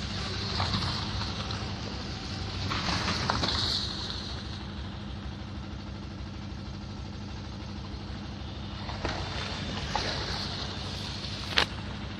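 Vehicle engines running steadily with a low hum and road noise, with a sharp knock near the end.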